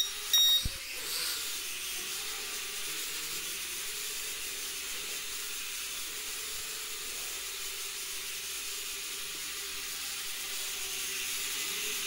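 Mini quadcopter's propellers buzzing steadily in flight, a high hiss with a faint tone that wavers slightly in pitch. About half a second in, the drone's remote controller gives one short high beep.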